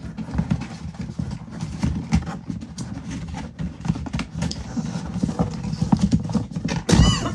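Screwdriver and its box being handled during unboxing: an irregular run of light knocks and clicks from packaging and tool being moved about, with a brief squeaky sound near the end.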